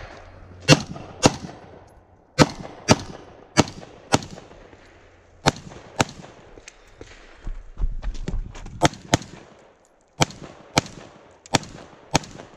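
AR-15 rifle fired rapidly in pairs of shots about half a second apart, with short pauses between pairs while the shooter moves from target to target.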